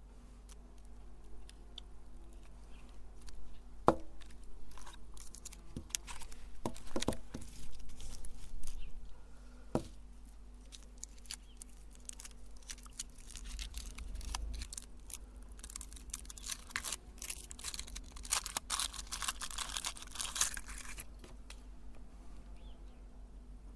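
Meat grinder crushing a mini paper cocktail umbrella: scattered sharp cracks and crackling, tearing sounds, with a denser stretch of crackling about two-thirds of the way through.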